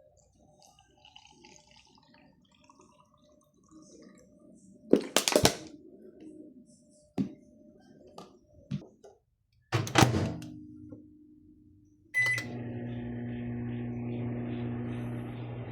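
A couple of sharp knocks, then a short beep and a microwave oven starting up and running with a steady hum.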